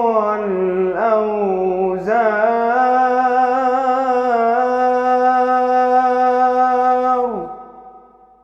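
Solo male voice singing an unaccompanied Islamic ibtihal (devotional supplication) in melismatic style. It opens with ornamented runs, then holds one long note that drops in pitch and fades away about seven seconds in.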